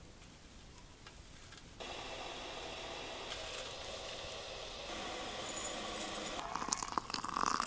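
Dry black tea leaves rustling and crackling as a hand works them in a wooden bowl, steady from about two seconds in. Near the end come quick clicks and light clinks as the leaves are pushed into a porcelain teapot.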